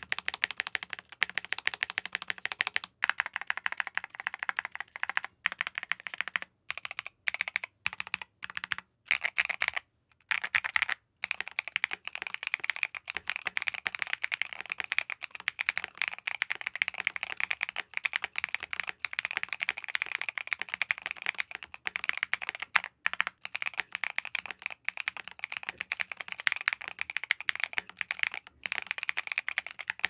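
Typing sound test on a Keychron Q5 Max full-size aluminium gasket-mount mechanical keyboard with Gateron Baby Raccoon linear switches, Keychron KSA keycaps, lubed Durock V2 stabilizers and all case foam installed. A fast, continuous run of keystrokes, broken by a few brief pauses.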